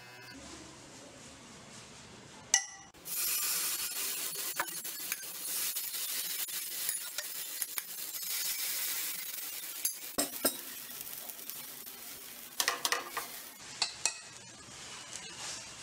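Wheat rava dosa batter sizzling on a hot non-stick pan as it is ladled in. The sizzle starts about three seconds in and is strongest for several seconds before easing, with a few sharp clinks of the metal ladle against the pan in the second half.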